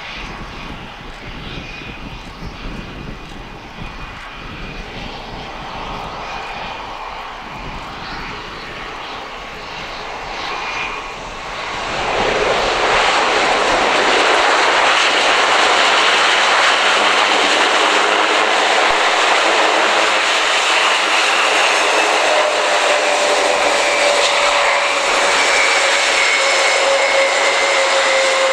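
Airbus A400M Atlas's four Europrop TP400-D6 turboprop engines running as the transport comes in to land and rolls down the runway. The sound gets much louder about twelve seconds in and stays loud, with a steady whine joining it in the last few seconds.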